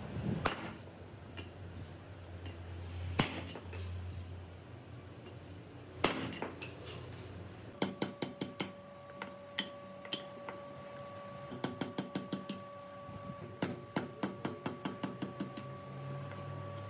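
Hammer striking a steel punch to drive old valve guides out of a tractor cylinder head: a few single knocks, then from about halfway in quick runs of ringing metal blows, several a second, with the metal ringing on between strikes.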